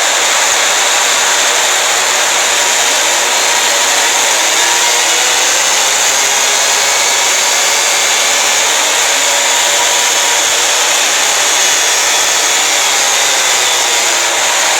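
Emergency Alert System-style alarm distorted into a very loud, harsh, steady wall of noise. Faint tones and slow sliding pitches are buried in it.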